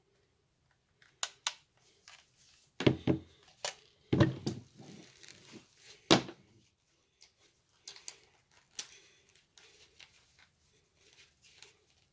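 Handling noises from a heat gun and its cord: scattered knocks, clicks and rustles as it is moved about and set down on a tabletop, the loudest knocks about 3, 4 and 6 seconds in.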